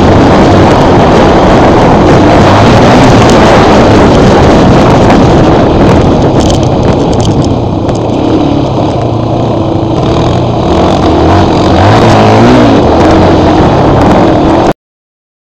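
Off-road motor vehicle engines running under heavy wind noise on the microphone, loud and rough. The engine pitch rises and falls briefly near the end, then the sound cuts off suddenly.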